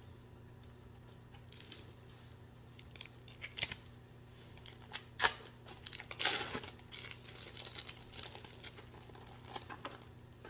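Thin plastic wrappers crinkling as gloved hands peel them off individually wrapped cheese slices. The crackles come in scattered short bursts, loudest about halfway through.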